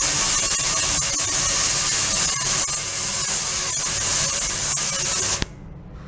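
Ultrasonic cleaning tank running: the water cavitating under the ultrasound gives a loud, steady hiss with faint steady tones under it. It cuts off suddenly about five and a half seconds in.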